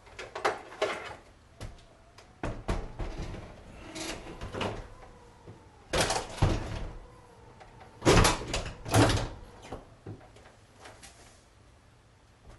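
Flat-panel TV being hung on a steel angle-iron wall bracket: a series of knocks, clunks and scrapes as the set is lifted, bumped against the wall and its bracket bolts dropped into the holes of the wall-mounted angle iron. The loudest clunks come about eight to nine seconds in.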